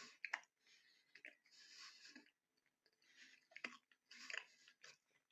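A man chewing a mouthful of pork pie: faint, irregular wet mouth clicks with short hissy stretches about once a second.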